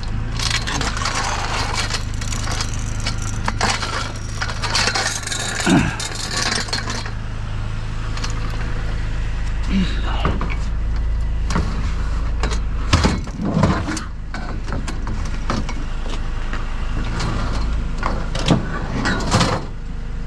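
Metal patio umbrella frame, its pole and bundled ribs, rattling and knocking as it is handled and laid into a pickup truck bed, with a few sharp clunks about two-thirds of the way through and near the end. A steady low hum runs underneath.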